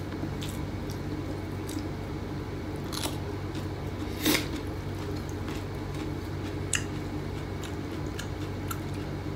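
Someone eating with their hands: chewing, with small scattered clicks and taps from fingers and dishes, the clearest about three and four seconds in, over a steady low hum.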